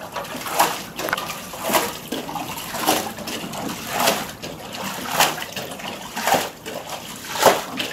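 Floodwater being bailed out of a flooded room by hand with a jug: a splash and pour about once a second as water is scooped off the floor and tipped out over the doorstep.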